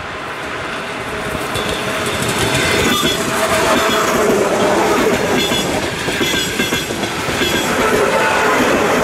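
ED4M electric multiple unit running past, its wheels clattering over the rail joints with the unusual wheel knock the video is about. It grows louder over the first three seconds, then stays loud with a steady whine under the clatter.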